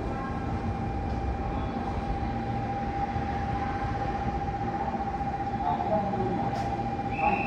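Train on the JR Kyoto Line at a station platform, a steady low rumble with a single steady tone held over it; a second, higher tone comes in near the end.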